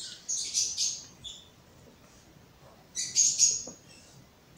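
Close-up eating sounds of a person chewing soft, sugar-topped ensaymada bread: wet smacking clicks in two short clusters, one at the start and another about three seconds in.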